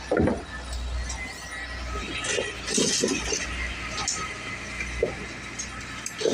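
Workers' voices in the background, in short scattered bursts, with a few light metallic clinks over a steady low rumble.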